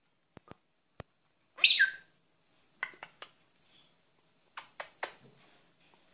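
Senegal parrots calling: one loud call falling in pitch about a second and a half in, then short, sharp chirps in quick groups of two or three, with a few faint clicks before the first call.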